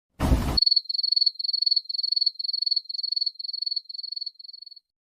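A short dull thump, then the 'awkward silence' cricket-chirping sound effect: about nine chirps on one high pitch, roughly two a second, fading away.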